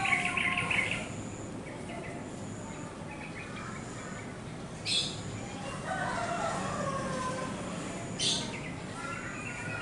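A rooster crows twice, once at the very start and again from about six seconds in. Two short, sharp high chirps come about five and eight seconds in.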